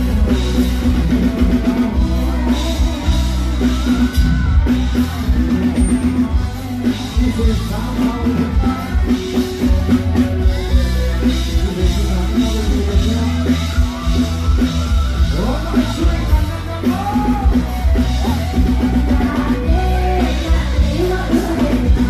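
A live band plays loudly through the PA, with drum kit and heavy bass. A woman sings into a handheld microphone over it; her voice is clearest in the second half.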